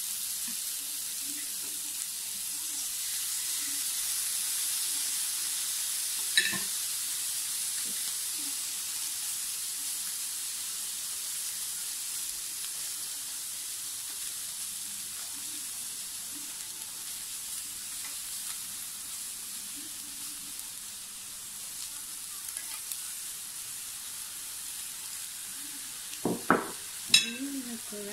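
Pork ribs sizzling steadily on a hot electric grill plate while teriyaki glaze is spooned over them, with a sharp knock about six seconds in and a few more knocks near the end.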